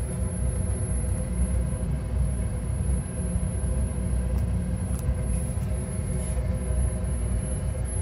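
Armstrong Air gas furnace running with its gas burners lit: a steady low rumble with a faint hum.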